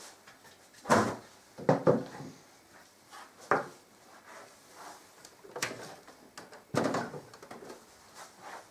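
A series of about six separate knocks and clunks as a steel desktop PC case and its screwdriver are handled on a table: the screwdriver set down and the open case turned around.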